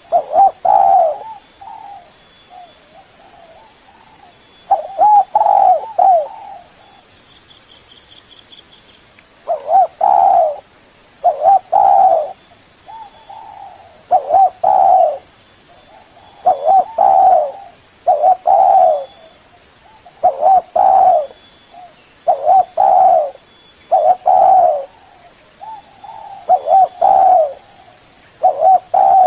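Spotted dove cooing its repeated territorial song, short phrases of a few deep coos about every two seconds, used as a lure call to draw rival doves. A faint high trill from another bird comes about a quarter of the way through.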